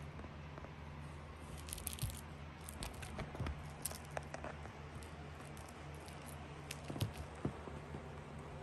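A kitten pawing and clawing at a corrugated cardboard cat scratcher with a ball inside: scattered scratches, rustles and light knocks, in a flurry from about a second and a half in and a few more sharp ticks later on. A low steady hum runs underneath.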